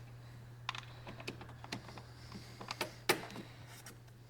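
Light, irregular plastic clicks and taps from handling a car's inner door panel as the interior door handle and lock cable are slid into their slot and clipped in, the sharpest click about three seconds in, over a steady low hum.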